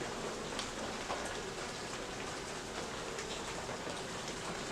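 Steady patter of rain made up of many fine drop ticks, with a faint low hum of honeybees from the open hive.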